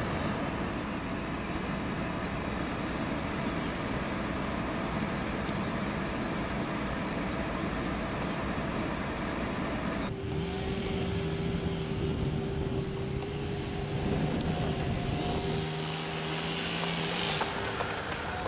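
A vehicle's engine running under a steady rushing noise. About ten seconds in the sound changes abruptly to a lighter rush with a steady hum.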